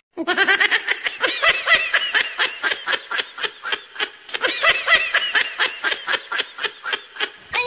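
A person snickering: a long, rapid run of short laughs, about five a second.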